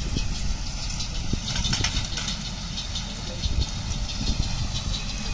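Tractor engine running steadily as it pulls a small square baler baling straw, heard as a low, uneven rumble.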